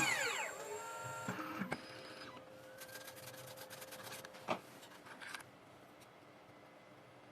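CNC key cutting machine's spindle motor winding down, its whine falling in pitch over about a second and a half as the cut finishes. Then a run of light clicks and a faint whir of the machine's moving parts, stopping about five and a half seconds in.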